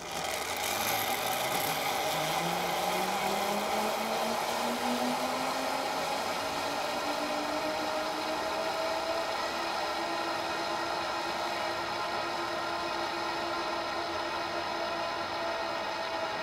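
Zip line trolley running down a steel cable as a rider launches: a whirring whine that starts suddenly, rises in pitch for about six seconds as the trolley picks up speed, then holds steady.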